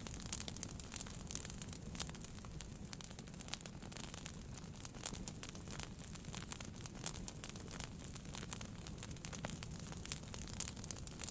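Wood fire burning in a fireplace: irregular sharp crackles and pops over a low, steady rumble of the flames, with a louder pop about two seconds in.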